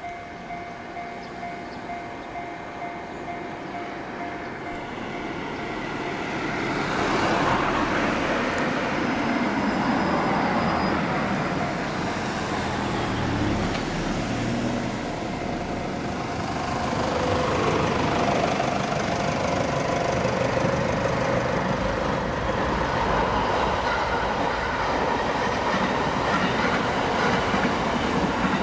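Japanese level-crossing warning bell ringing in a steady repeating beat, then a train runs over the crossing: its noise swells about 7 seconds in, drowning the bell, and stays loud in two waves as the cars pass.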